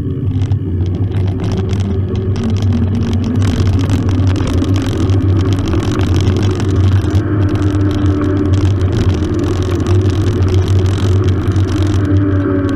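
Steady wind rumble on a bike-mounted camera's microphone while a mountain bike is ridden, with the bike rattling and a hum that wavers in pitch.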